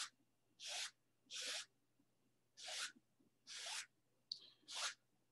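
A wide bristle brush swishing across stretched canvas in a series of about seven short, even strokes, roughly one every two-thirds of a second. It is being pulled lightly sideways through wet oil paint to blur the tree reflections in the water into horizontal streaks.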